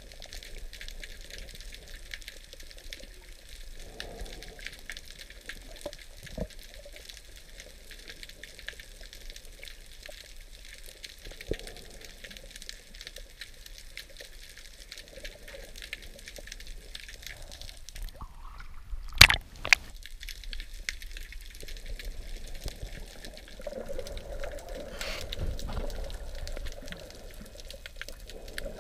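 Underwater ambience picked up by a diving camera: a steady faint crackling hiss with scattered ticks, one sharp loud click about two-thirds of the way through, and a swelling rush of water near the end as the camera nears the surface.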